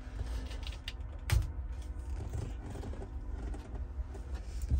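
Wire strippers working on a small automotive wire, with one sharp snap about a second in and light handling noise over a low, steady hum.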